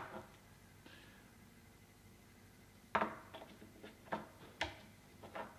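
Plastic clicks and knocks as a surface-mounted outdoor wall socket and its box are handled: after a quiet start, about five short, sharp clicks about three seconds in and over the following couple of seconds, the one about four and a half seconds in the heaviest.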